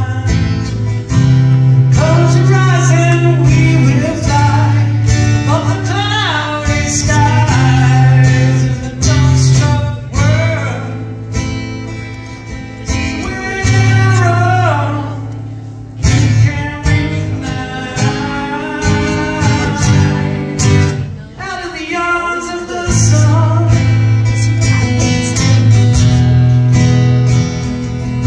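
A man sings live with a strummed acoustic guitar. The vocal line rises and falls over steady chords.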